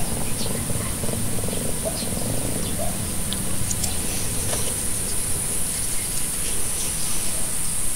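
Steady background: a constant high-pitched drone over a low rumble, with a few faint small clicks from handling a small metal grease fitting.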